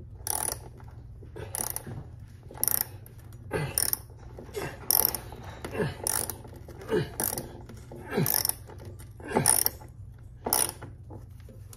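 Small socket ratchet wrench cranked back and forth about once a second, driving a screw through a curtain rod bracket into a concrete wall. Each stroke gives a burst of ratchet clicks and a short falling squeak. The screw doesn't seem to be catching in the wall.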